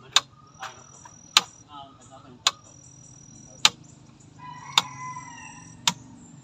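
Two three-way wall light switches clicking as they are pressed in turn: six sharp clicks about a second apart, each switching three bulbs on or off to test the circuit.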